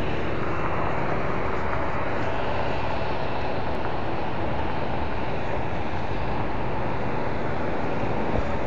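Steady road-traffic noise, an unbroken low rumble with a faint hum over it.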